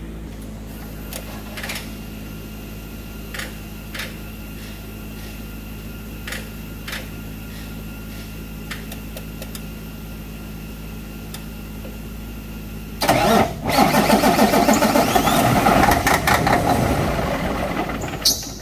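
A steady low hum with a few light clicks, then about 13 seconds in the starter cranks the Cummins ISX diesel for about five seconds without it catching, and stops suddenly. It will not start because the fuel lines, opened for the work, have not yet refilled with fuel.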